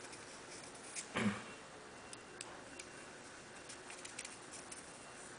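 Faint, scattered small clicks and ticks of a carving blade working the piece, with one brief louder sound about a second in.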